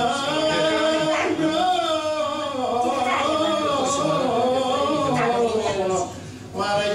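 A solo male voice singing an Epirote myrologi, a slow lament, in long wavering held notes, with a short break for breath about six seconds in.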